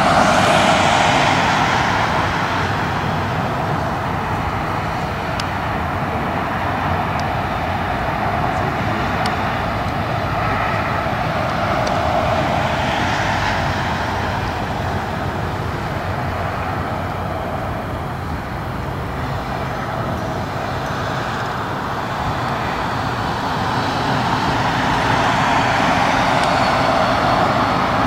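Jet airliner engine noise: a loud, steady rush that swells in the first couple of seconds and again near the end.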